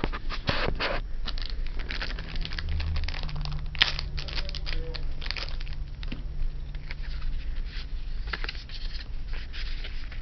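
Booster-pack cards and their packaging being handled: irregular rustling, crinkling and light taps as the cards are unwrapped and sorted through.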